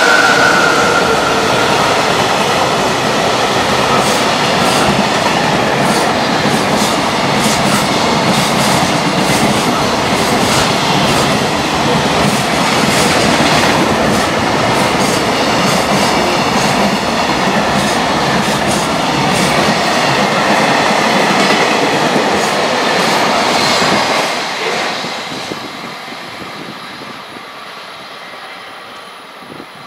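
Long container freight train passing at speed, its wagon wheels clattering over the rail joints in a steady run of clickety-clack. The sound stays loud until about 24 seconds in, then fades quickly as the end of the train goes by and draws away.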